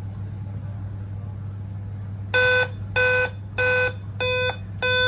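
Dell laptop giving its startup beep code: five short, evenly spaced beeps starting about two seconds in, over a steady low hum. Five beeps is Dell's code for a CMOS battery failure, which the video fixes by replacing the CMOS coin cell.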